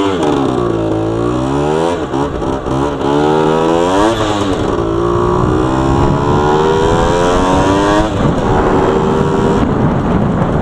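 Yamaha DT80's single-cylinder two-stroke engine under way, revving up and dropping back several times, about 2, 4.5 and 8 seconds in, before running steadier and lower near the end.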